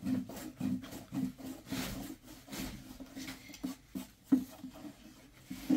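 Many short, irregular taps and rubbing against wood.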